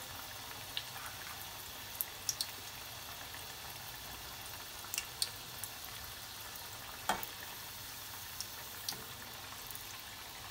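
Chakli deep-frying in hot oil in a metal kadhai: a steady soft sizzle with a few scattered sharp crackles.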